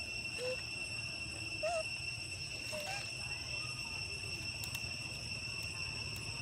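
Steady, unbroken high-pitched insect drone, with a few short chirps about half a second, a second and a half, and three seconds in.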